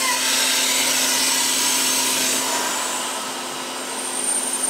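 Air hissing in through a Harvest Right freeze dryer's drain valve as it is opened to vent the vacuum chamber at the end of a finished cycle. The steady hiss starts suddenly and eases off a little after about three seconds, over a steady low hum.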